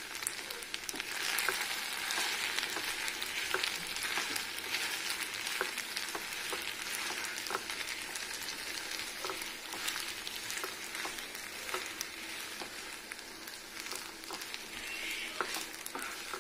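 Sago pearls and sugar sizzling in a ghee-coated non-stick pan while a spatula stirs them, with scattered light scrapes and taps of the spatula against the pan. The sugar is starting to melt into the pearls.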